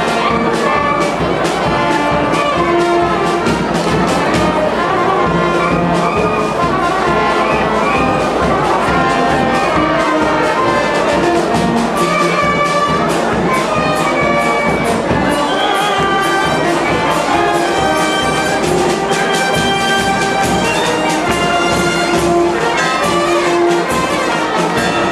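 Brass band playing a tune over a steady beat.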